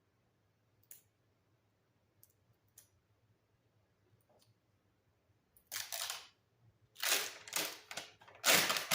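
A few faint clicks, then several short bursts of rustling and rubbing from the last few seconds on: a Simple Mat adhesive tile-setting mat sheet being handled and pressed into place on the wall by hand.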